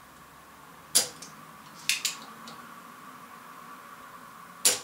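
A few sharp metallic clicks and taps from tools at work on an amplifier's circuit board during desoldering: one about a second in, a quick double just before two seconds, and a louder one near the end. A faint steady whine runs underneath.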